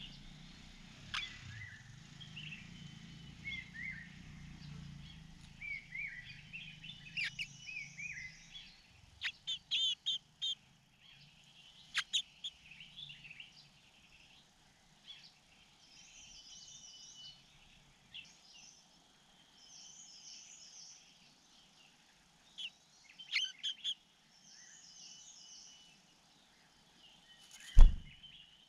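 Small birds chirping and calling in short repeated phrases, with a few sharp clicks and one loud thump near the end.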